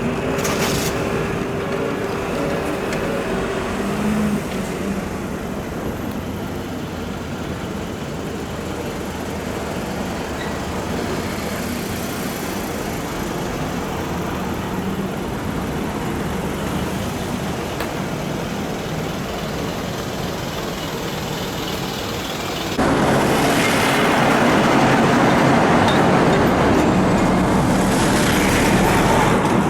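Steady road traffic noise, which becomes abruptly louder about 23 seconds in.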